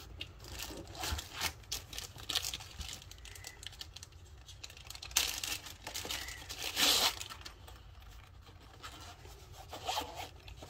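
Clear plastic bag crinkling and rustling as a zippered cleaning-kit case is pulled out of it, with louder tearing rustles about five and seven seconds in.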